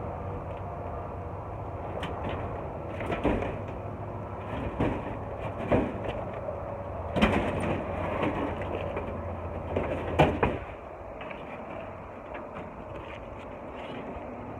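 A car's engine hum with a series of knocks and clunks, likely from the loaded metal scrap in the back. The low hum stops about ten and a half seconds in.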